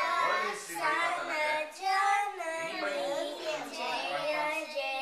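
A young girl singing a song unaccompanied, her voice holding and gliding between notes.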